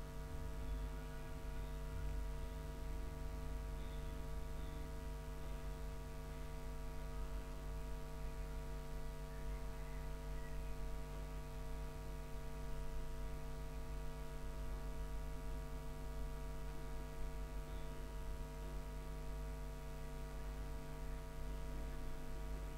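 Steady electrical hum made of several held tones, over a low rumble, unchanging throughout.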